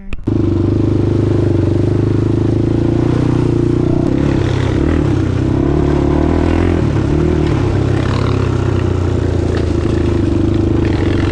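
Honda 400EX quad's single-cylinder four-stroke engine, cutting in suddenly and running loud and steady at fairly constant revs, with slight wavers in pitch midway.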